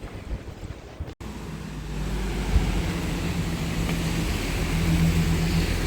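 Busan subway train running: a steady low motor hum with a held tone that builds louder, along with rising rushing noise. It starts after an abrupt cut about a second in, before which there is only a wind-like rushing.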